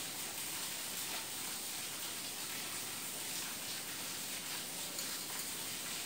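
Quiet, steady background hiss with no distinct sounds.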